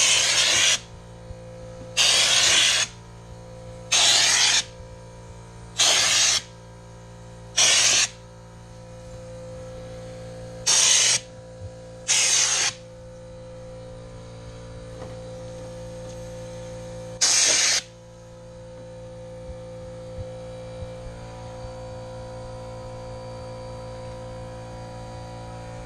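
Air-powered spray gun hissing in eight short bursts of about half a second to a second each, as liquid sound deadener is sprayed on, with the bursts coming every couple of seconds at first and then more sparsely. A steady low hum runs underneath.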